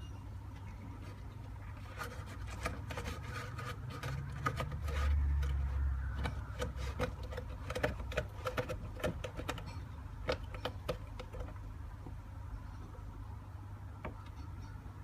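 Calico cat lapping water: a quick run of small clicks, several a second, starting about two seconds in and stopping near the end, over a steady low hum.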